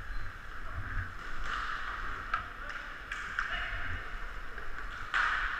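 Echoing rink noise of a hockey game in play: a steady hiss of skating and distant play in a large hall, with a few faint sharp clicks of sticks and puck and a brief louder burst near the end.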